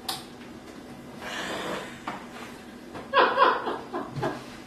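A single click of the Vitamix blender's switch with no motor starting after it: the blender has no power. A woman laughs softly about three seconds in.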